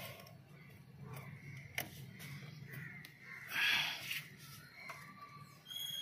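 Quiet handling of wires and connectors at a car's fuse box over a low steady hum, with a sharp click a little under two seconds in. A short harsh burst about three and a half seconds in is the loudest sound.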